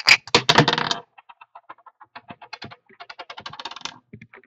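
A small die rattling hard in a dice cup, then tumbling and skittering across a wooden tabletop. After about a second the loud rattle gives way to a run of light, quick clicks that die away near the end.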